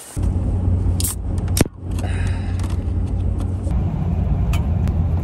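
Steady drone of a pickup truck driving, heard inside the cab: engine and road hum. A sharp click comes about a second and a half in, with a few lighter clicks and rattles.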